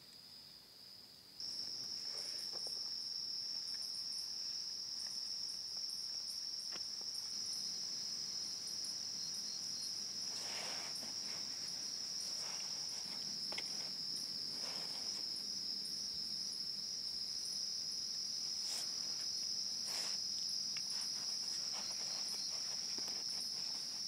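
Night insects, cricket-like, trilling in one steady high continuous tone that steps louder about a second and a half in. A few faint clicks and taps are scattered through.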